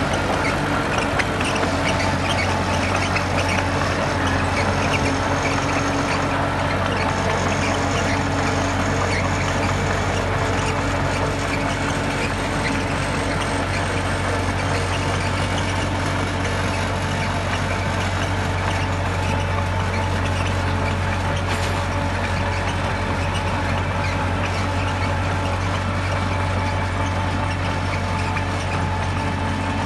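Diesel engine of heavy construction machinery running steadily at constant speed, a low even drone with no revving.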